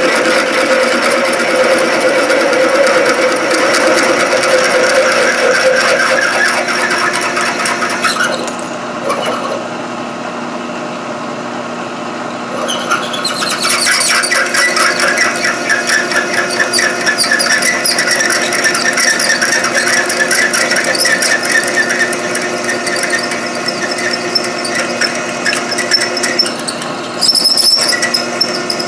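A large twist drill in a milling machine, run in low gear with cutting oil, drilling out an existing hole to a larger size. It makes a loud, high, rapidly pulsing cutting sound over a steady hum from the mill's motor and gearing. The cut goes quieter from about 8 to 13 seconds in, then picks up again.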